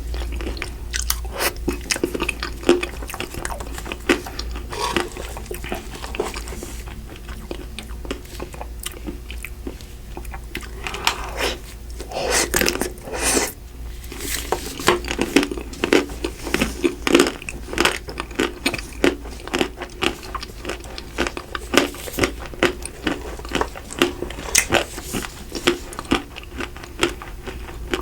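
Close-miked eating of Magnum Double Pistachio ice cream: repeated biting, crunching and chewing, with many crisp crackles from the hard coating, densest in the second half.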